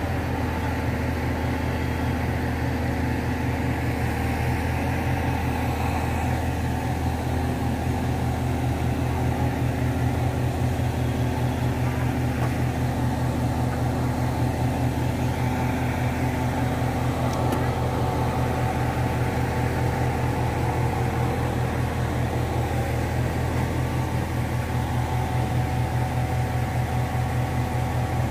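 Mobile crane's diesel engine running steadily, a low drone with faint steady tones above it.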